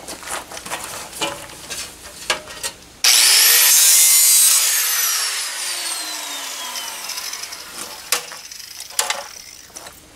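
A handheld rotary power tool starts abruptly about three seconds in, whining up in pitch, runs loud for about a second and a half, then spins down in a long falling whine. Before and after it, the loose sheet-metal fender panel clatters and knocks as it is handled.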